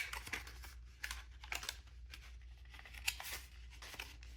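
Small paper-and-cardboard packaging being opened and handled by hand: a sharp click at the start, then short scratchy rustles, slides and light clicks.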